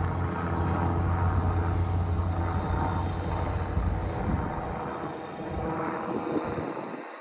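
An aircraft passing overhead: a steady low engine drone with several held tones, loudest for the first few seconds and fading away after about five seconds.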